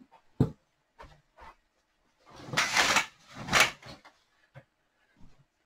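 Curtains being drawn shut: a knock, a few light clicks, then two long swishes of the curtains sliding across about a second apart.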